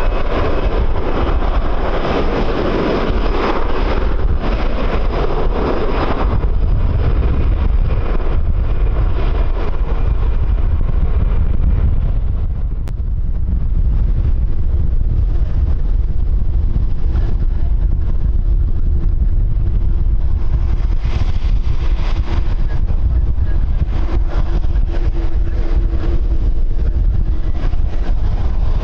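Strong wind buffeting the microphone, with the roar of an aircraft's jet engines fading away over the first several seconds. A faint steady engine tone remains under the wind from about halfway through.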